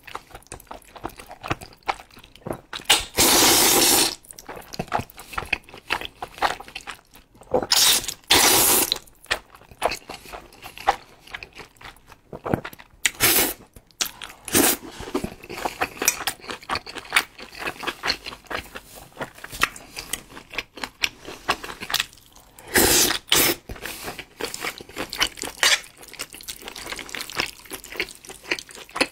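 A man slurping thick jajangmyeon noodles in black bean sauce, with three loud slurps of about a second each, near the start, about eight seconds in and near the end, and wet chewing and lip-smacking in between.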